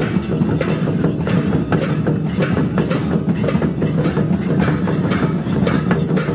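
Live Santali folk drumming on barrel-shaped madal hand drums, a fast, steady, unbroken beat for the dancers.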